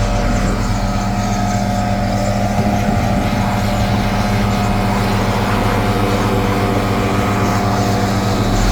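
An engine running steadily with a constant, even drone.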